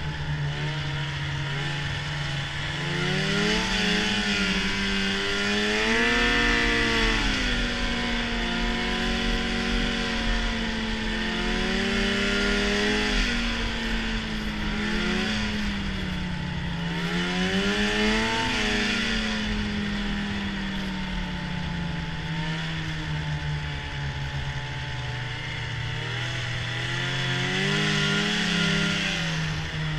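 Arctic Cat snowmobile engine running under way, its pitch rising and falling several times with the throttle. A steady rushing hiss runs underneath it.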